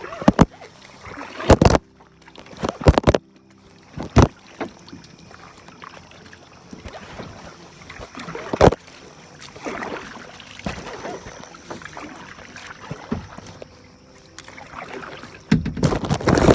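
A phone sealed in a plastic bag being handled in a small paddle boat: a string of sharp knocks and rustling swells from the bag, with water and boat noise underneath and a louder rustling stretch near the end.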